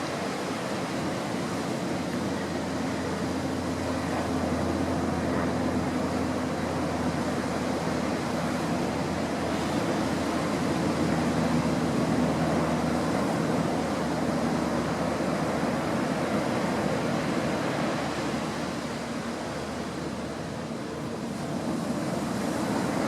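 Steady rushing of wind and waves, with wind buffeting the microphone and a faint low hum underneath.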